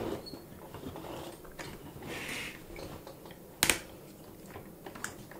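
Plastic parts of a Transformers Sky Lynx figure being handled and moved: a few light plastic clicks and a short rub, with one sharp snap about two-thirds of the way in.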